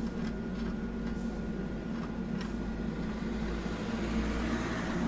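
Truck's diesel engine idling steadily, a low even hum heard from inside the cab, with a few faint clicks.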